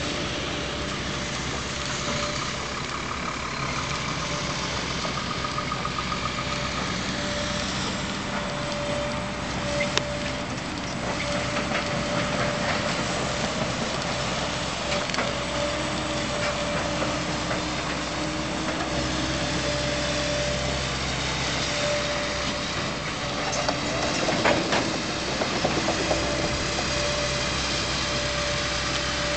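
JCB JS235 long-reach tracked excavator's diesel engine running steadily as it works, with a sharp clank about ten seconds in and a few louder knocks around twenty-five seconds in.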